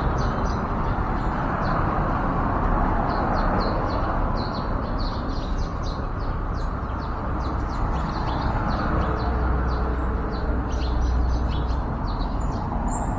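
Yellow-vented bulbuls chirping: a rapid run of many short, high chirps throughout, over a steady low background rumble.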